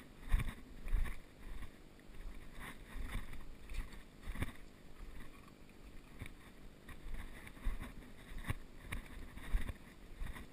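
Footsteps crunching on leaf litter and stones in uneven steps as someone walks through woods and a shallow creek bed. Low wind rumble and handling noise sound on the moving camera's microphone.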